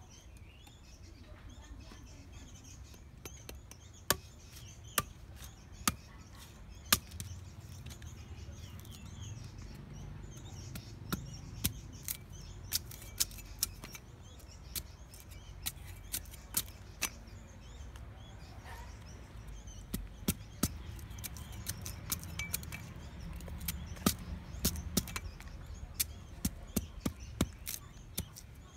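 A cleaver chops and peels a sugarcane stalk: irregular sharp cracks as the blade bites into the cane, first a few single strokes, then quicker runs of them.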